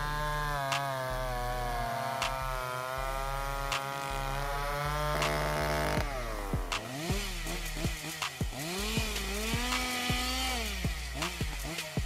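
Two-stroke chainsaws cutting wood. For the first six seconds an Echo chainsaw runs at steady full throttle through a log. It then cuts abruptly to another chainsaw felling a big tree, its engine speed rising and falling over and over.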